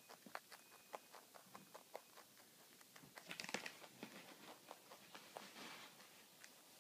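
Young rabbit chewing food pellets: faint, quick, irregular crunching clicks, with a brief louder rustle about three and a half seconds in.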